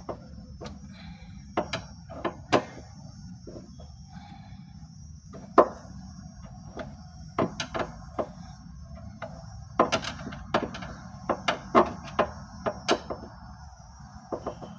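Irregular clicks and knocks of a small metal lock bolt and its screws being fitted to a wooden cabinet by hand, coming thicker towards the end, over a steady low hum.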